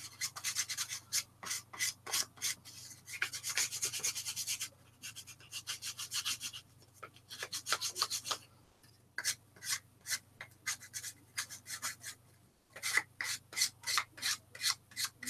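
Cork fishing float being hand-sanded with sandpaper: quick back-and-forth scratchy strokes, several a second, in runs broken by short pauses, smoothing off small bumps on the cork.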